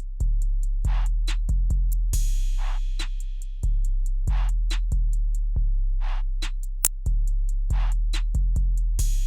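Background music: a drum-machine beat with long, deep bass notes, a snare hit about every 1.7 seconds and quick hi-hat ticks, with a cymbal splash about two seconds in and again near the end.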